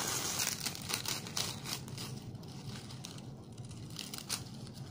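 Dry, charred husks of a grilled ear of corn crackling and tearing as they are peeled off by hand, busiest in the first couple of seconds and again near the end.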